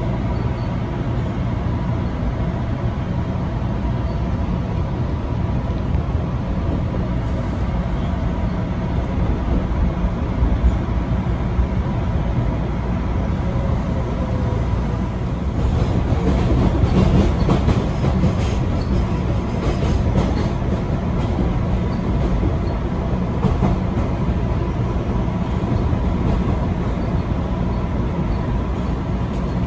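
MBTA subway train running along the track, heard from inside the car: a steady rumble with a constant hum, growing louder with rattling and rail clicks about halfway through.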